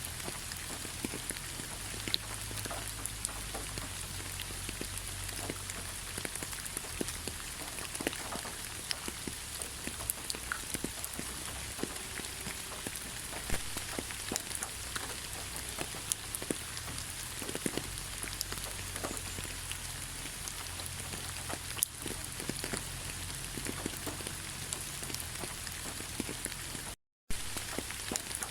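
Steady rain falling in a forest, an even hiss dotted with many separate drops striking close by. The sound cuts out completely for a split second near the end.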